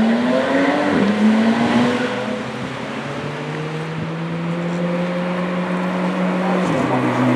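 McLaren Senna's twin-turbo V8 accelerating away: the revs climb, drop suddenly with a gear change about a second in, and climb again. It then holds a steady note and drops in pitch suddenly near the end.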